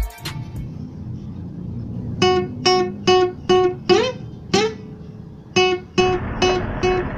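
Background music: a plucked guitar riff of single notes about two to three a second, beginning about two seconds in over a low sustained backing, with a few notes bent or slid in pitch.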